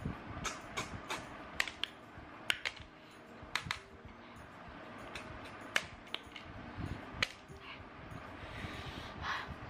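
Sucking stir-fried river snails out of their shells: an irregular run of short, sharp sucking and lip-smacking clicks, about a dozen, with empty shells tapping onto the plate.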